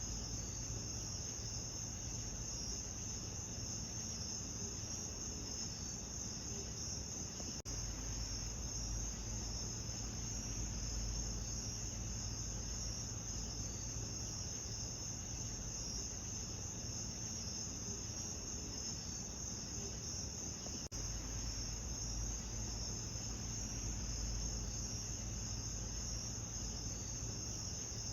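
Steady chorus of crickets chirping, high-pitched and unbroken, over an even background hiss and a low rumble. Two very brief glitches break it, about eight and about twenty-one seconds in.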